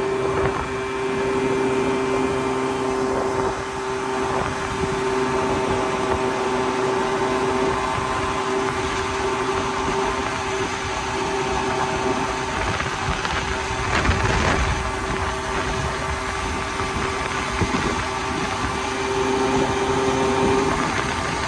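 Honda Spree scooter's 49 cc two-stroke engine running at a steady pitch while riding along, with wind rushing over the microphone. A brief louder rush of noise comes about 14 seconds in.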